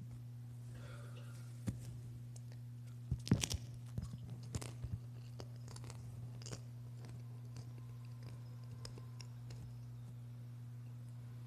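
Steady low hum with a handful of soft clicks and knocks, the loudest a little over three seconds in, from a priest handling the host and chalice at the altar as he receives Communion.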